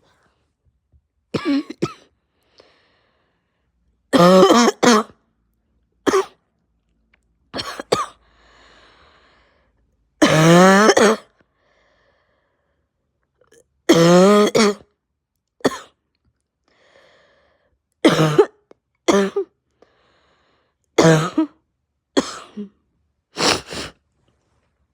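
A person's harsh barking cough, coming in a long series of separate coughs, singly and in pairs, some of them long and voiced. It is a chesty cough from a chest cold with a raw, sore throat.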